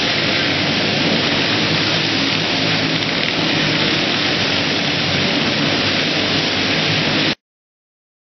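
Several go-kart engines running flat out as karts lap the track, a steady, dense wash of engine noise. It cuts off abruptly to silence about seven seconds in.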